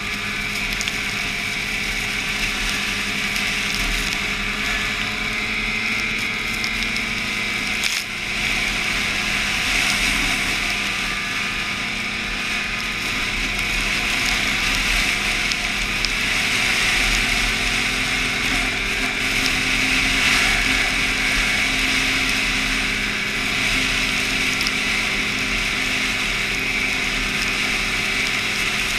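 Snowmobile engine running at a steady pace under way, with a hiss of rushing air over it; the sound dips briefly about eight seconds in.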